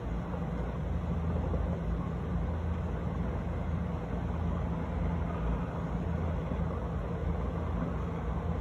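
Steady low rumble of distant city background noise, with no distinct firework bangs standing out.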